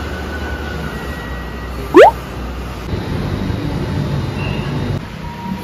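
Steady city traffic noise from a busy street of cars and motorbikes. About two seconds in there is one loud, short sound that rises sharply in pitch.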